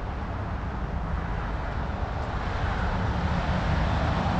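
Outdoor background noise: a low rumble under a steady hiss, slowly growing louder toward the end, with no single sound standing out.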